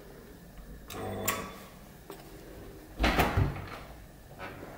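An apartment doorbell is pressed and gives a short ring about a second in. About three seconds in comes a loud clunk as the front door's latch is released and the door is opened.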